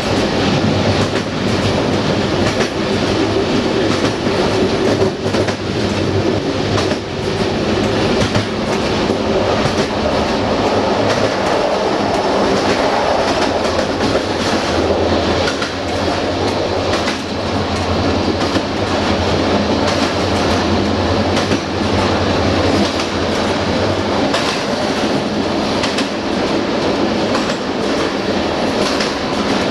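Passenger train coach running along the track: a steady rumble of wheels on rail with a continual run of clicks from the wheels passing over rail joints.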